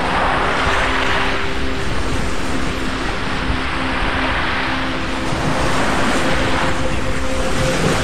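Sea waves breaking and washing up on a beach, a steady rush of surf. One surge comes near the start and another about five seconds in, each swelling and then fading.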